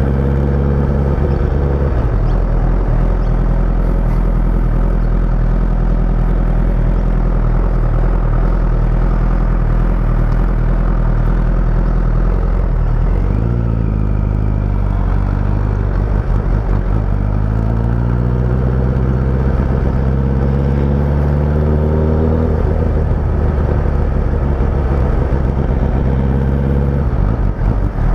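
Motorcycle engine running under way, its note rising and falling with the throttle: a dip and climb about halfway through, a longer climb after, and a drop near the end.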